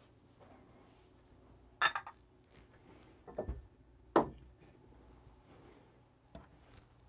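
Glassware being handled: four separate sharp clinks and knocks, the last a light tap as a glass beaker is set down on a digital coffee scale.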